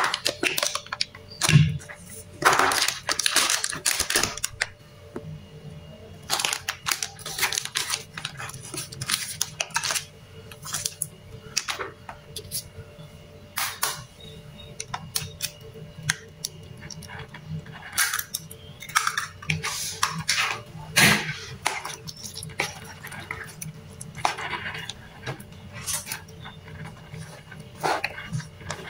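A metal spoon scraping and tapping against a plastic mixing bowl as ingredients are spooned in, in irregular clicks and short scrapes. Near the end a knife scrapes across a cutting board.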